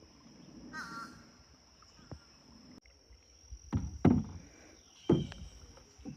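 A few loud, harsh animal calls, one short one about a second in and three louder ones about two thirds of the way through, over a steady high-pitched insect trill.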